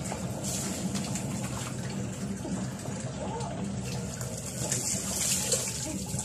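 Water poured from a plastic dipper over a person's head and body, splashing down onto the ground, with the heaviest pour about four to five seconds in.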